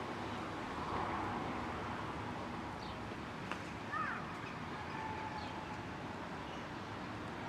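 Outdoor city air under a gathering thunderstorm: a steady background rush with a few birds calling over it. There are short high chirps every few seconds and a quick two-part call about four seconds in.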